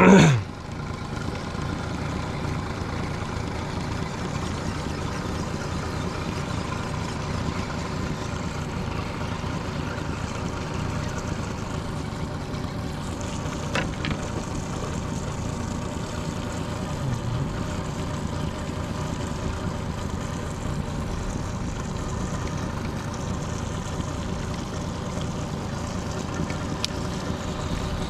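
A boat's outboard motor running steadily, with one short faint knock about halfway through.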